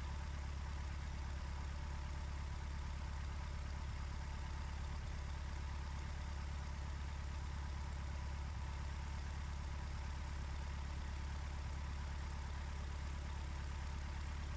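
Cessna 150's four-cylinder engine and propeller running at low taxi power, a steady, even drone. The engine has a fouled spark plug.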